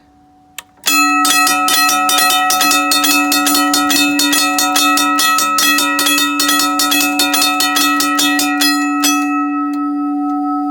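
Raco mechanical railroad crossing bell ringing, its hammer striking the gong in a rapid, steady series for about eight seconds. The strikes then stop and the gong's tone rings on, slowly fading.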